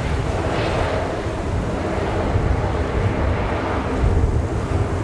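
Distant whine and hum of a taxiing Airbus A340-500's four Rolls-Royce Trent 500 jet engines at low thrust, heard under a steady rumble of wind buffeting the microphone.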